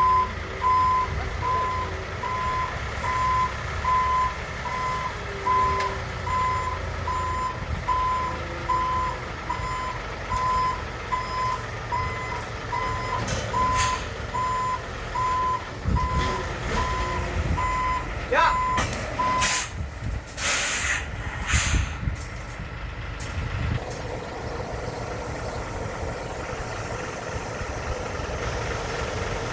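Concrete mixer truck's reversing alarm beeping evenly, a little over once a second, over the diesel engine running as the truck backs up; the beeping stops about twenty seconds in. A few short hisses of air follow, typical of air brakes being set, then the engine runs on steadily.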